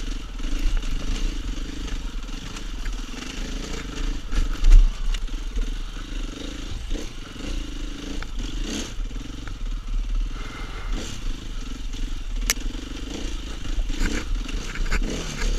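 2015 KTM 500 EXC's single-cylinder four-stroke engine running steadily at an even pitch while the bike crosses loose rocks, with frequent knocks and clatter and one heavy thump about five seconds in.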